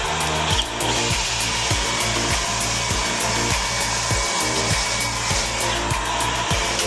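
Background music with a steady beat, about one and a half beats a second.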